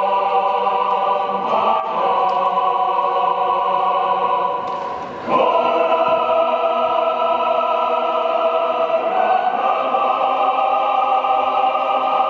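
Choral music with long held chords that change every few seconds, with a brief dip in level shortly before a new, fuller chord comes in about five seconds in.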